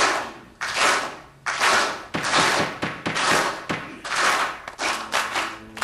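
A crowd clapping in slow, steady unison, a little more than one clap a second, each clap ringing in a large room. Soft sustained music notes enter near the end.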